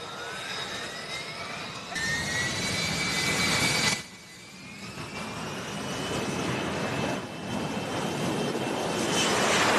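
Single Pratt & Whitney F135 jet engine of an F-35C in flight: a rushing roar with a high whine that slides in pitch. The sound jumps abruptly about two seconds in, drops off suddenly about four seconds in, then builds again near the end.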